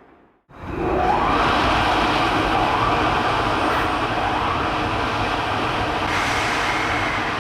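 Electric freight train passing close by, a steady loud running noise that starts abruptly about half a second in. The locomotive's traction motors whine in tones that rise and fall through it.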